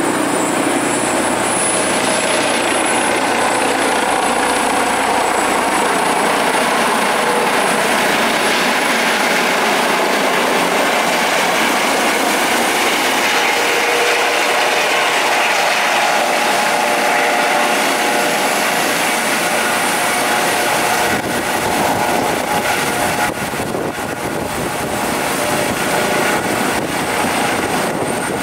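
Airbus Helicopters EC155 B1, a twin-turbine helicopter with a Fenestron tail rotor, coming in to land and hovering onto the pad: a steady turbine whine with a high whistle over the rotor noise. It gets a little quieter near the end.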